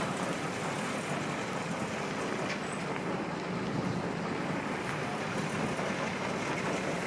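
Steady running noise of a motorboat underway: a low engine hum under a wash of water and wind.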